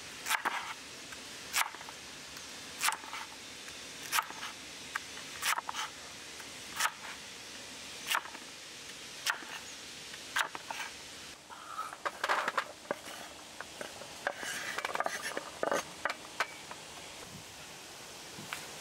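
A cleaver dicing a white radish on a wooden cutting board, the blade knocking sharply against the board about once every second and a quarter. Past the middle the cuts come faster and closer together.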